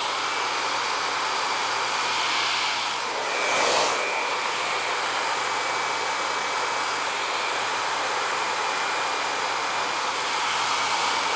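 Handheld hair dryer fitted with a diffuser, blowing steadily with a thin steady whine over the rush of air. It grows briefly louder about three to four seconds in.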